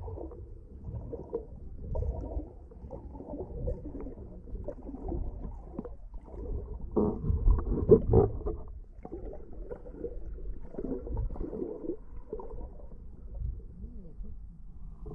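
Muffled underwater sound picked up through a GoPro's waterproof housing: an irregular low rumbling and sloshing of water moving around the camera, louder for a moment about halfway through.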